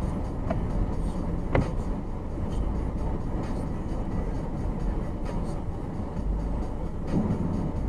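Steady low road and engine noise heard inside a moving car on a slushy road, broken by a few short sharp clicks, the loudest about a second and a half in.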